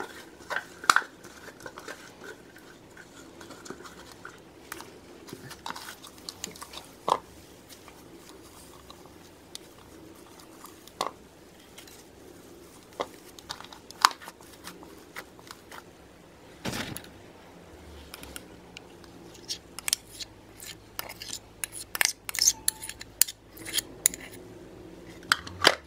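Hands stretching and pulling a stringy slime in a plastic bowl, with scattered sharp clicks and pops. In the last few seconds a spoon clinks and scrapes against the bowl in quick clusters of taps as metallic paint is spooned onto the slime.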